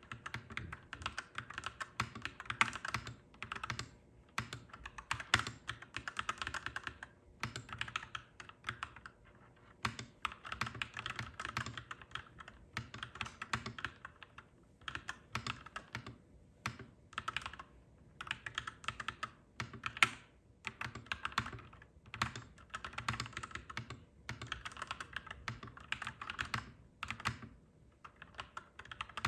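Clacky mechanical keyboard typing: rapid runs of keystrokes broken by short pauses every few seconds.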